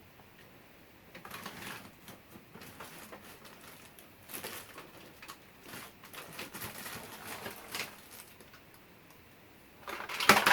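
Irregular clicks, taps and rustling from small objects being handled, with a louder clatter of clicks near the end.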